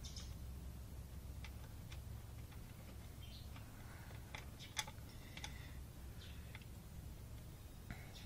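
Scattered small clicks and ticks of fingers handling small parts on a Harley-Davidson fuel pump module's metal plate, the sharpest just under five seconds in, over a low steady hum.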